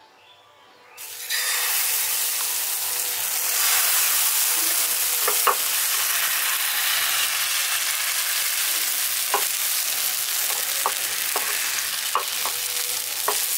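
Semolina batter sizzling on a hot oiled nonstick tawa: a steady loud sizzle that starts about a second in as the batter is ladled onto the pan. A few light clicks sound over it.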